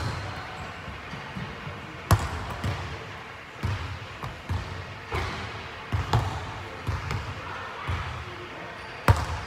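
Basketball bouncing on a hardwood gym floor: sharp thuds every second or two, echoing in the large hall, the loudest about two seconds in and near the end.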